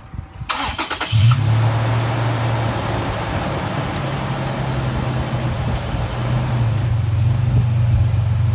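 Toyota Tacoma pickup engine starting: the starter cranks briefly about half a second in, the engine catches about a second in, then settles into a steady idle.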